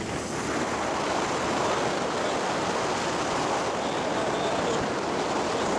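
Steady rushing wind noise on the microphone while riding a small motorcycle.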